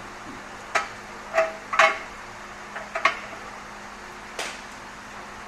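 Sharp metallic clinks and clanks, about five in a few seconds, each with a brief ring, the loudest about two seconds in: hand tools or metal parts knocking together. A faint steady hum runs underneath.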